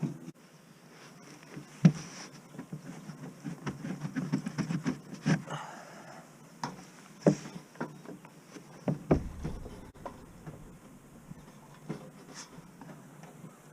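Scattered knocks, clicks and scraping from hands and tools working on wooden boards and fittings in a small boat cabin, with a burst of rustling handling in the middle and a few sharper knocks.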